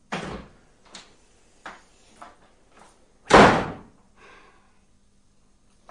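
A door slamming shut about three and a half seconds in, the loudest sound, after a shorter knock at the start and a few light taps between.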